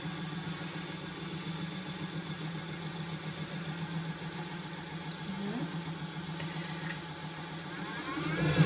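Ashford e-Spinner 3 electric spinning wheel running, its motor and spinning flyer giving a steady hum while merino fibre is drawn on and twisted.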